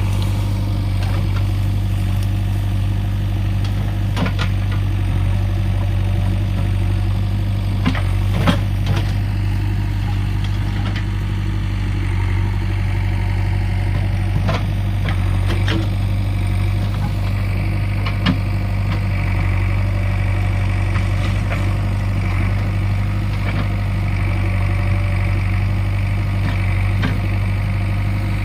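JCB 3DX backhoe loader's diesel engine running steadily at low revs, with occasional sharp knocks now and then.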